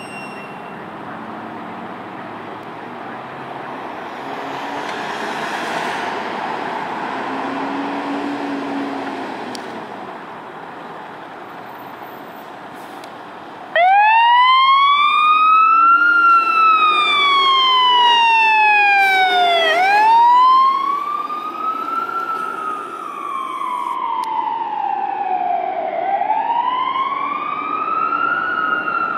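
For about the first fourteen seconds there is steady vehicle and traffic rumble. Then a fire engine's siren starts suddenly at full volume in a wail, rising and falling slowly in pitch about every six seconds.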